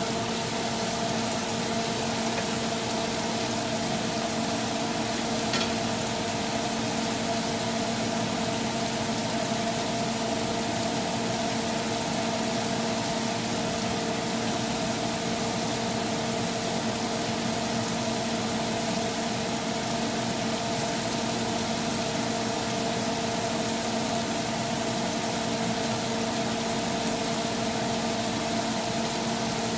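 Black tiger shrimp sizzling in garlic butter in a pan: a steady, even frying hiss, with a steady hum underneath.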